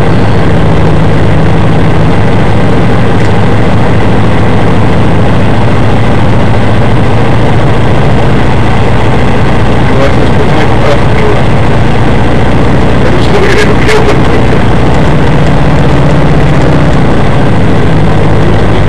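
Škoda 120 S rally car's rear-mounted four-cylinder engine idling steadily and loud inside the cabin while the car stands still. A couple of sharp clicks come about thirteen to fourteen seconds in.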